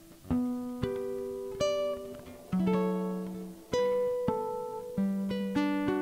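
Nylon-string classical guitar, a Takamine TC135SC acoustic-electric, played fingerstyle: an unhurried line of plucked notes and chords, each struck sharply and left to ring.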